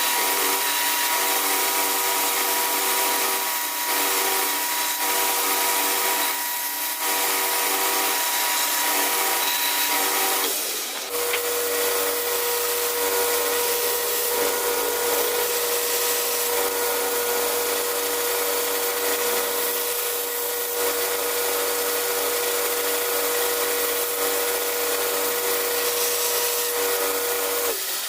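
A motorised workshop tool running steadily with a constant whine. About eleven seconds in the sound changes abruptly to a lower steady tone with a deeper hum underneath.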